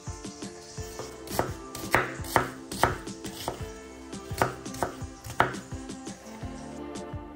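Chef's knife chopping an onion on a wooden cutting board: sharp knocks of the blade against the board, the strongest about half a second apart, with lighter taps in between.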